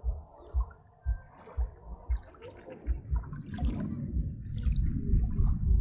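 Small river waves lapping and splashing at the shore, with wind buffeting the microphone in uneven low thumps.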